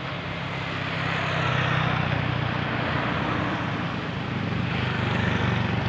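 Heavy vehicle engine running with a steady low drone over road noise, growing slightly louder about a second in.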